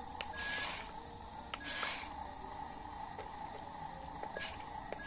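Small electric drive motor and gears of a Yi Gong RC dump truck whirring in three short bursts as the truck is driven in spurts.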